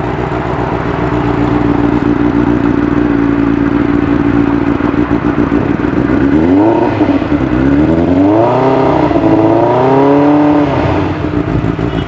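Benelli TNT 600i's inline-four engine on its stock exhaust, idling steadily, then blipped up and down about four times from a little past halfway before dropping back to idle.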